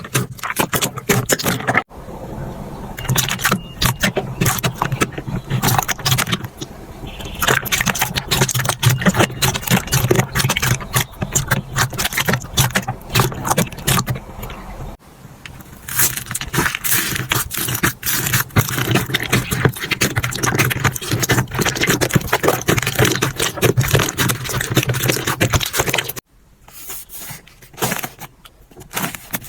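Slime being squeezed, pressed and poked by hand close to the microphone: a dense, continuous crackling and clicking of popping bubbles and squelches, changing abruptly about 2, 15 and 26 seconds in as one clip gives way to the next.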